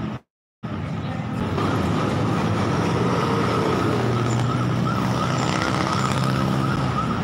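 Road traffic: vehicle engines running and passing in a steady hum, one engine note sliding in pitch midway, with a thin warbling tone above it. The audio cuts out for a moment just after the start.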